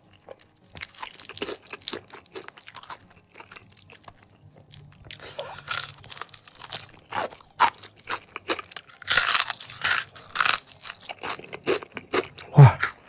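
Close-up biting and chewing of crispy deep-fried battered chicken wing, with bursts of loud crunching as the crust and the soft, edible wing bones are chewed. The loudest crunching comes about nine to ten seconds in.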